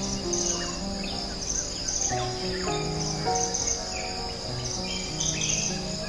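Crickets chirping in a steady, evenly pulsing chorus, over slow background music with held notes.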